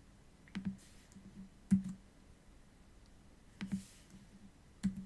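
About five sharp computer clicks, spaced roughly a second apart, each with a soft low thud. They come from operating a Rubik's Cube program to paste in a move.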